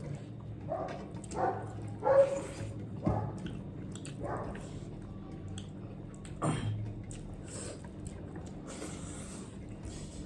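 Close-up eating sounds of chicken soup and rice: chewing and slurping broth, with scattered short clicks. The loudest come about 2 seconds and 6.5 seconds in.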